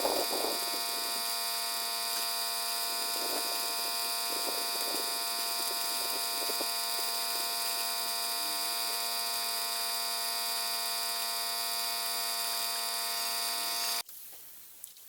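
Electric power tool motor running at a steady speed with a buzzing hum and a high whine, then switched off abruptly near the end.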